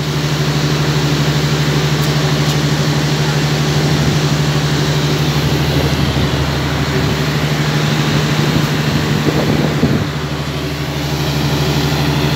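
Bangladesh Railway intercity express passenger coaches rolling past, their wheels rumbling on the rails over a steady low hum.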